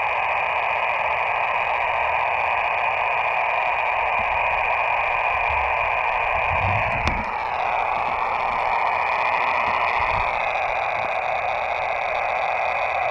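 Steady hiss of band noise from an Elecraft KX2 transceiver's receiver on single-sideband, with faint steady whistles in it: an open frequency with no station replying. A click about seven seconds in, after which the whistles shift slightly in pitch.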